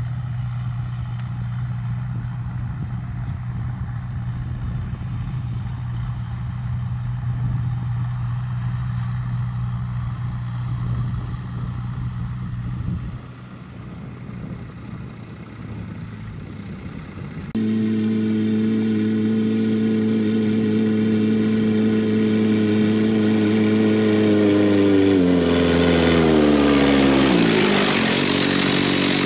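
John Deere tractor's diesel engine running steadily while pulling a mounted seed drill. After a sudden cut a little past halfway, the engine is louder and closer, and its pitch drops near the end.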